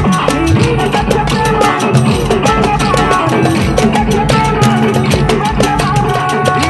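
Upbeat music with a steady, driving drum beat.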